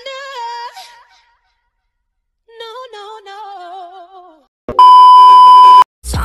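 A high-pitched singing voice in two short wavering phrases, then near the end a loud steady bleep tone at a single pitch for about a second, cut off sharply.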